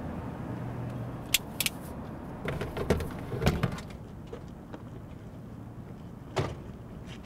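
Pickup truck engine running low, fading after the first second, followed by sharp clicks and clunks of its doors opening and people getting out, and a door shutting with a thud about six seconds in.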